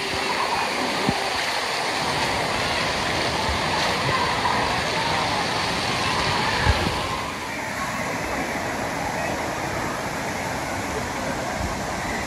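Water pouring and spraying down from a children's water-play structure onto the pool: a steady rushing splash, with a crowd's voices in the background. About seven seconds in the rush turns softer and less hissy.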